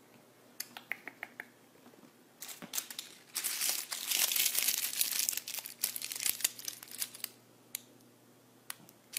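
Silver foil tinsel crinkle-ball cat toy being crinkled as the cat plays with it: a few scattered crackles, then a dense crinkling rustle for about four seconds, then a few last crackles near the end.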